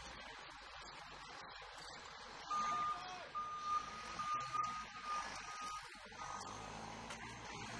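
Forklift reversing alarm beeping about six times, each beep a short single high tone, the first loudest and the rest fading. Under it is a steady low engine hum.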